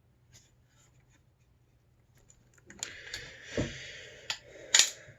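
Faint ticks, then about three seconds in a scraping rub with several clicks and a low thump, the loudest click near the end: a film spool being worked into the take-up chamber of a Lubitel TLR camera and popped into place by its tabs.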